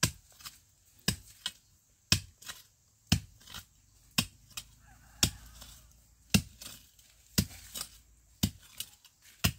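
Steady chopping: a hard blow about once a second, each followed by a lighter strike.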